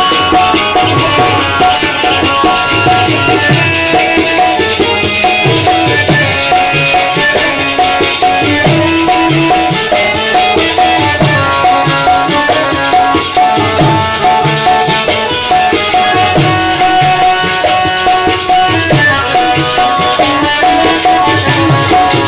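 Live Pothwari folk music: harmonium and sitars playing steady melodic lines over a repeating drum rhythm.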